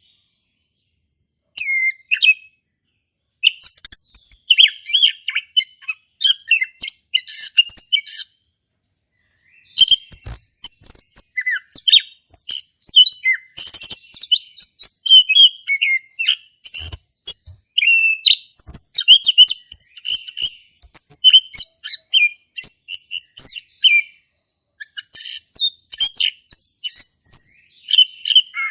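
Male chestnut-capped thrush (anis kembang) singing at full volume: a long run of rapid, varied high-pitched chirps and warbles, broken by a few short pauses.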